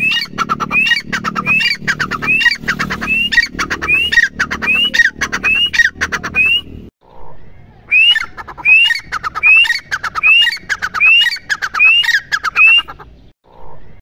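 Grey francolin calling: a loud series of ringing, upward-sliding notes, about three every two seconds. The series breaks off for about a second halfway through, then starts again.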